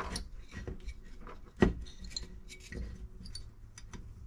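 Small metal parts of a McCulloch 1-10 chainsaw engine clicking and clinking as they are handled and worked loose. There is one sharper knock about a second and a half in.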